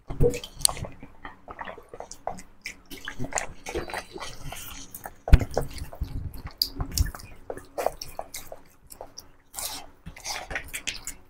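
Close-miked eating sounds: wet smacking and chewing, and fingers mixing rice and curry on steel plates, with a few dull thumps, the loudest just after 5 seconds in.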